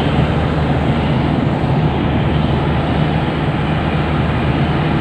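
Diesel locomotive of a passenger train running right below, a steady low engine hum over a constant rumbling noise.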